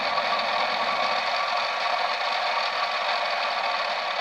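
Small lathe running steadily with its form tool cutting the tyre profile into a model railway wheel.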